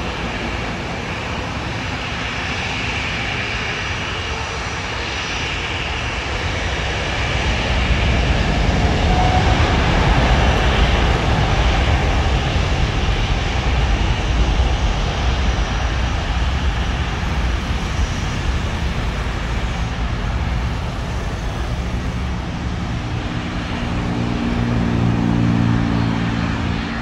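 Boeing 787-9 jet airliner on its takeoff roll, engine noise swelling into a deep, loud rumble about eight seconds in and holding strong as it accelerates down the runway. Near the end a steady hum with several fixed tones takes over.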